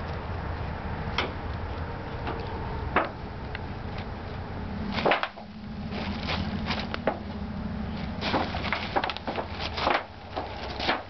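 Irregular taps, knocks and rustles over a steady low hum, thickening in the second half.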